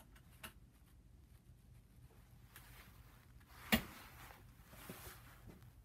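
Faint rustling of clothing close to the microphone, with one sharp click-like knock from the torque-wrench calibration rig about two-thirds of the way through.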